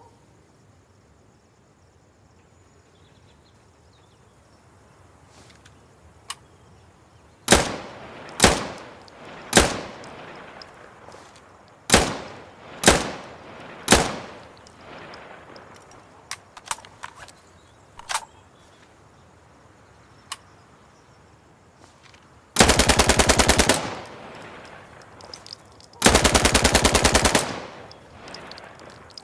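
Uzi submachine gun firing: six single shots, each with a ringing tail, then two short fully automatic bursts of about a second each, the loudest part.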